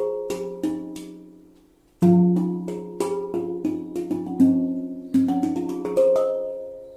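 Handpan played by hand: struck steel notes ringing and slowly decaying, fading out for a moment, then a low note struck about two seconds in with a quick run of higher notes ringing over it.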